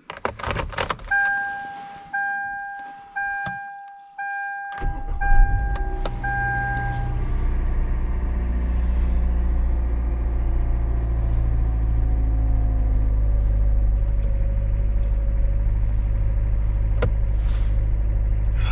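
Car keys clicking and jangling in the ignition, then a dashboard chime dings about once a second, six times. About five seconds in, the car engine cranks and catches in a cold start at 15°F, then idles with a steady low drone.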